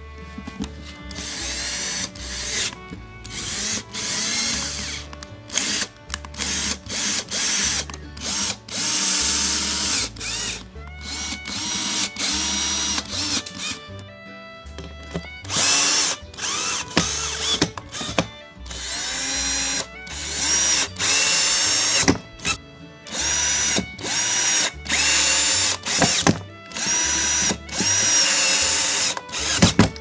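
Deton cordless drill driving screws through steel hinges into plywood, in many short runs of one to two seconds, the motor's pitch rising as each run starts.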